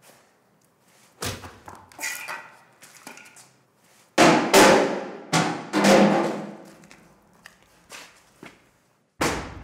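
A series of sharp knocks and crashes. A few light ones come first, then the loudest hits come close together about four to six seconds in, and a last sharp hit lands near the end.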